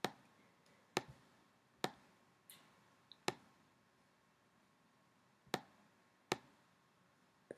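Computer mouse clicking: about eight single sharp clicks at irregular intervals, with quiet room tone between them.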